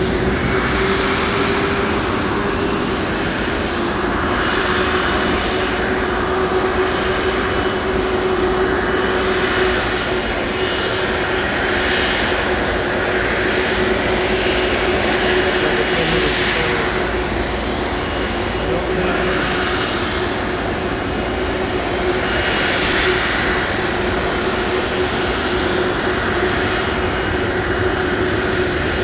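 Rolls-Royce Trent 772B turbofan of an Airbus A330-243 MRTT running at low power during engine start: a steady hum with a rushing sound that swells and fades every few seconds.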